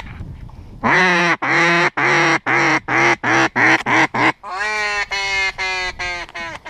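Mallard-hen duck call blown hard in a comeback call to ducks that are leaving: a run of loud quacks, long at first then quickening and dropping in pitch, followed about three and a half seconds in by a second, higher, evenly spaced run of quacks.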